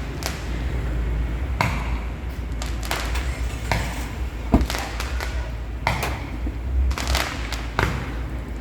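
Stage fireworks going off in a string of irregular sharp bangs and crackles, several seconds apart to less than a second apart, over a steady low rumble.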